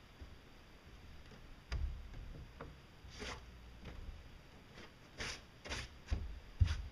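Scattered soft thumps and short rustles from a barefoot person moving about on a metal boat deck and handling its fittings, with the heaviest thumps near the end.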